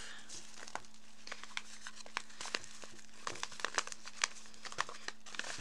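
Kraft paper bag crinkling as it is handled and opened, a scatter of short, sharp crackles and rustles. A faint steady hum runs underneath.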